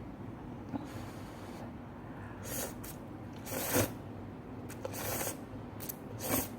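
Close-miked eating sounds from someone eating spicy stir-fried noodles: four short hissy slurps or sniffs, the loudest about midway, over a steady low hum.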